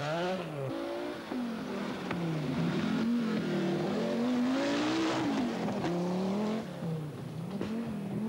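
Rally car engines, among them an Audi Quattro's, revving hard on a gravel forest stage, the pitch climbing and dropping over and over with gear changes and lifts of the throttle. There is a rush of hiss about halfway through.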